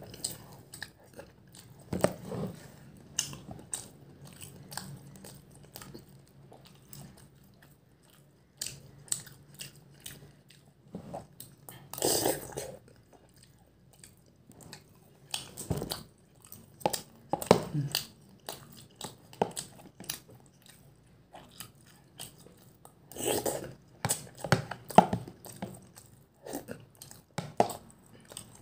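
A person chewing and eating meatballs close to the microphone, with frequent short clicks and scrapes of a metal fork in a plastic food container.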